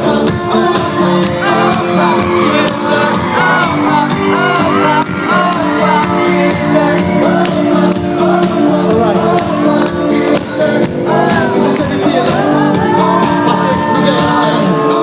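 Live pop concert music played loud in an arena hall, with a steady beat and sustained synth chords, overlaid by audience shouts, whoops and singing.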